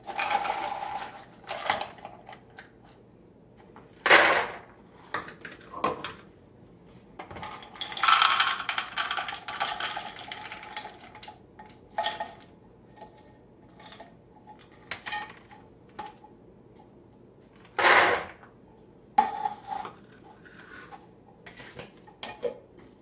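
Almonds poured from a can into a plastic measuring cup and tipped into a plastic mixing bowl: irregular rattling clatters of nuts on plastic. The longest, densest rattle comes about eight seconds in, with sharp clunks about four and eighteen seconds in.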